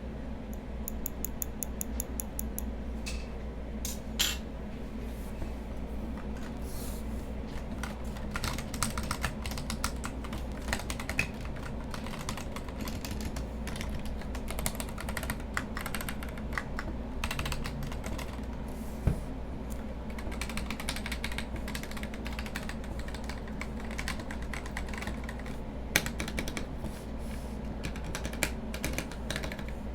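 Typing on a Royal Kludge RK100 mechanical keyboard fitted with PBT XDA-profile keycaps: a continuous run of keystroke clicks, with a few louder strokes among them.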